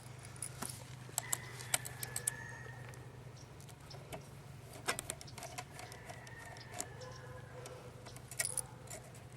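Small clicks and ticks of a screwdriver backing out the last small screws that hold a laptop LCD panel in its lid frame. Faint drawn-out high squeaks come and go over a low steady hum.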